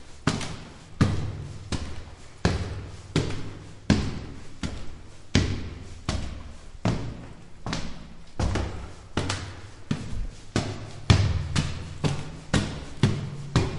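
Footsteps climbing stone stairs, an even stride of about one and a half steps a second, each step a sharp knock with a low thud and a short echo.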